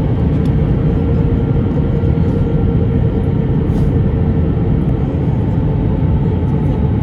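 Cabin noise inside an Airbus A321 in flight: a steady rumble of the engines and rushing air with a constant hum running through it.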